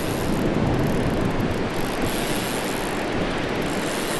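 Fly reel's click-pawl ratcheting as line is wound in on a hooked bonefish, in uneven spells, over a steady rush of wind and surf.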